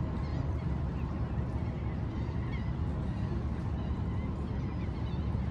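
Steady low rumble of wind and harbour noise. Faint short bird calls come through now and then.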